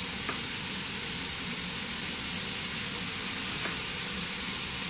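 Steady hiss and sizzle of a pot heating on the stove, with two light knocks of a knife on a cutting board.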